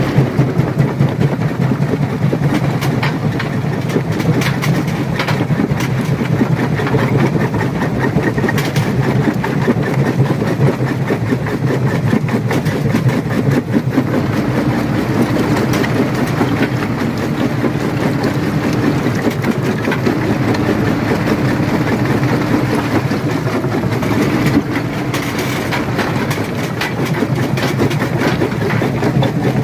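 Rock crusher running under load: a steady low machine hum with rocks cracking and clattering as they are crushed.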